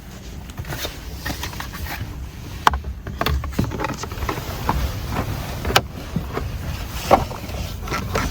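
Scattered clicks and knocks of plastic steering-column trim being handled and fitted, a few sharp ones standing out, over a low steady rumble.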